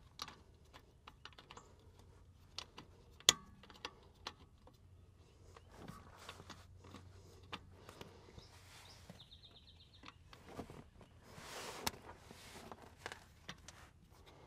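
Faint, scattered clicks and knocks of a new air brake chamber being handled and seated against its metal mounting bracket, with one sharp clack about three seconds in.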